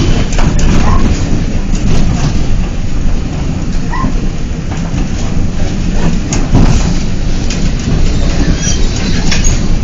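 Vehicle rolling over a rough, unpaved dirt street, heard from inside the cabin: a steady low rumble with irregular rattles and knocks as it goes over the bumps.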